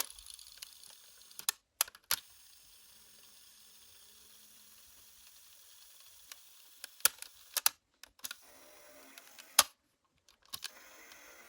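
Sharp clicks and taps from handling a cassette player during its repair: a couple about two seconds in and a cluster between seven and ten seconds, over faint room noise.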